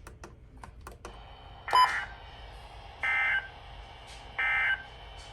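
Emergency Alert System end-of-message data bursts: three short, identical buzzy digital screeches about a second and a half apart, the coded signal that marks the end of the alert.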